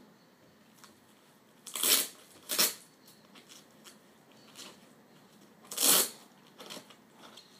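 Rustling and rubbing from a black leather sneaker being handled and turned over in the hands. There are three sharp scuffs, two close together about two seconds in and one about six seconds in, with fainter rustles between them.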